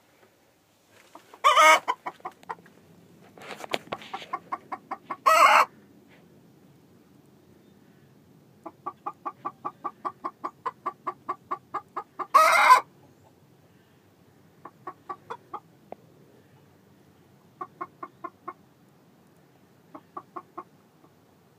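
Hen's egg song: runs of rapid clucks, about four a second, broken by three loud squawks, the last of them about twelve seconds in. Shorter runs of clucks follow. The cackle a hen gives around laying an egg.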